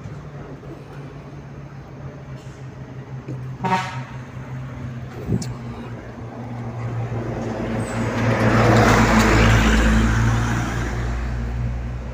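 Box truck's diesel engine running as the truck moves past close by, its sound swelling to its loudest about eight to ten seconds in, with a short horn toot about four seconds in.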